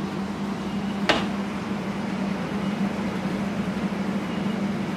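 Fan oven running with a steady hum, with a single sharp click about a second in as the oven door is opened.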